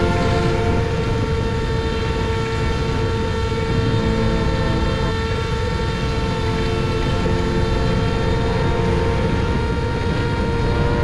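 Xing-E 2208 1800kv brushless motor and propeller of a small FPV flying wing running steadily in flight, a held multi-tone whine, with wind rushing over the onboard camera's microphone.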